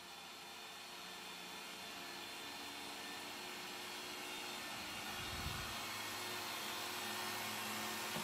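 Motor of a bench-mounted Hitachi electric drill on a drilling machine running steadily at speed: a steady whine over hiss, slowly growing louder.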